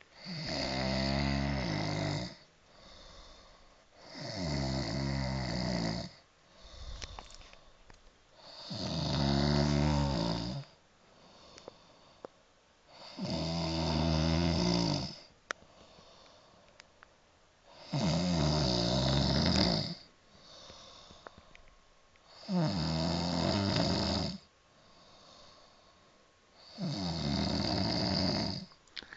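A man snoring in his sleep: seven long snores of about two seconds each, coming every four and a half seconds or so, with fainter breaths between them.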